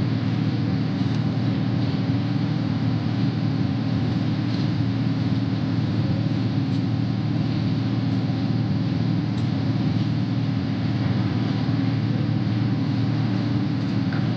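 A steady low rumble, even in level and without breaks.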